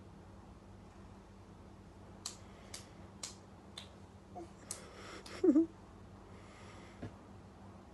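A sleeping man's faint snoring breaths, one near the end. In the middle comes a run of sharp clicks or taps, and the loudest sound, a short squeak, comes about five and a half seconds in.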